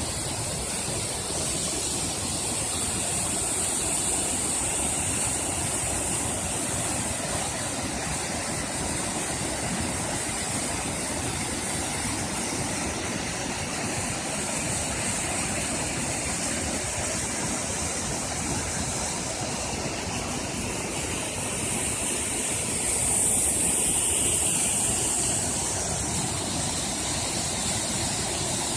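Waterfall in full flow: a steady rush of falling water, a little louder about 23 seconds in.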